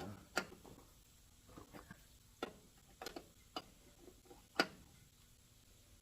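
Sharp, irregular metallic clicks of a ratchet wrench being worked on a bolt, about seven separate clicks with fainter ticks between, the loudest near the end.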